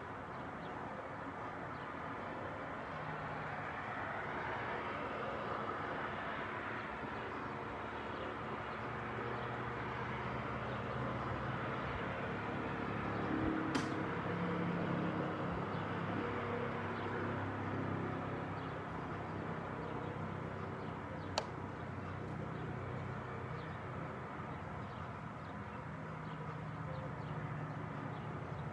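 Outdoor ambience: a steady wash of distant traffic with a low, wavering engine hum, and faint bird chirps. Two sharp clicks stand out, about a third of the way in and again about two-thirds through.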